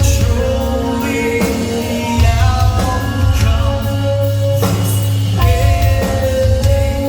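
Live rock band playing loud, with sung vocals holding long notes over guitars, drums and a heavy bass.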